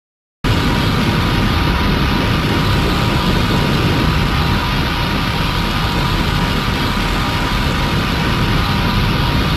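A horror-logo sound effect: a loud, steady, noisy rumble with a faint steady tone running through it, starting abruptly about half a second in.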